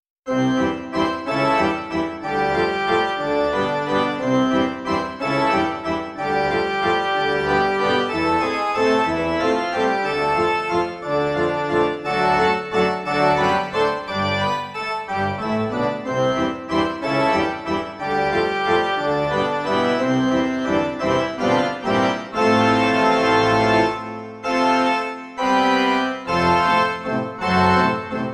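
Instrumental background music, a keyboard tune of changing notes, starting suddenly at the beginning.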